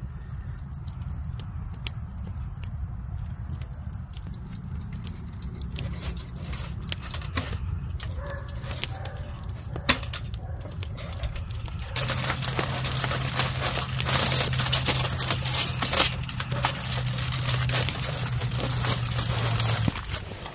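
Knife cutting an onion and potato on a folding camp table, with small clicks and snaps over a campfire's crackle. About twelve seconds in, a louder, steady rustling hiss with a low hum takes over and stops shortly before the end.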